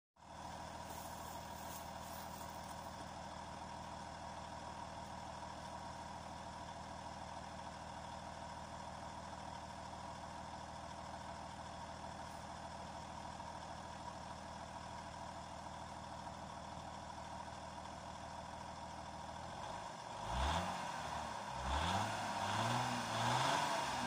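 Audi A4 B5 2.5 V6 (110 kW) heard at its stock exhaust tailpipe, idling steadily. Over the last four seconds or so it is revved in a few quick blips that rise and fall.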